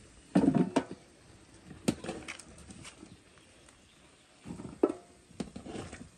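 A spoon knocking and clinking against a metal pan in a few short, irregular clusters, the loudest about half a second in.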